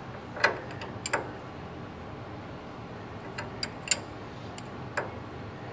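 Light metallic clicks of a combination wrench on the castle nut of a steering linkage joint, a handful of separate clicks scattered over a few seconds as the wrench is worked and refitted on the nut.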